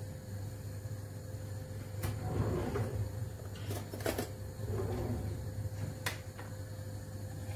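Kitchen handling noises: sharp clicks and knocks about 2, 4 and 6 seconds in, like a cupboard door or utensils being moved, with brief rustling between them. A steady low hum runs underneath.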